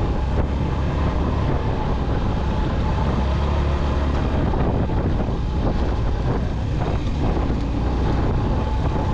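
Small motorcycle running steadily along a rough gravel track, with the engine's low drone and wind on the microphone. A few jolts over the stony surface come around the middle.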